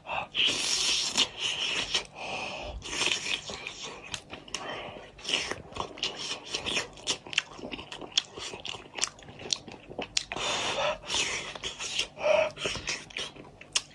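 Close-up eating sounds: a person chewing, biting and crunching through a goat's head, with many quick wet clicks and several longer hissing stretches.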